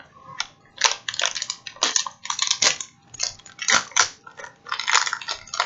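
Plastic snack wrapper of a Kit Kat crinkling and tearing as it is opened, in quick irregular clusters of crackles.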